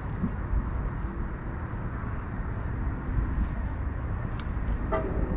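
Steady outdoor rumble of wind on the microphone and distant city traffic, with a few faint clicks. Near the end a distant horn begins to sound.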